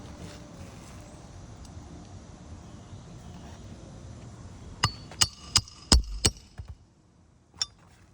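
Hammer blows on metal: five quick, sharp strikes with a short bright ring, then one more strike near the end.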